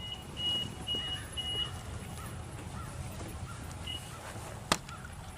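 A vehicle's reverse warning beeping while it backs a boat trailer down a launch ramp: short high beeps about twice a second, four in a row, then one more near four seconds in. A low engine rumble runs underneath, and a single sharp click comes near the end.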